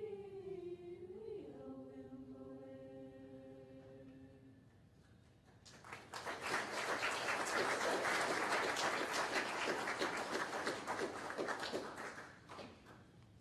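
A choir sings the last held chord of a song, the pitch shifting once about a second in, and releases it about four and a half seconds in. After a short hush, an audience applauds for about seven seconds, dying away near the end.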